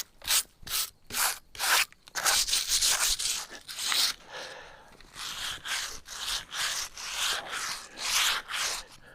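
Repeated rubbing or scraping strokes, about two or three a second, louder and closer together in the first half and softer toward the end.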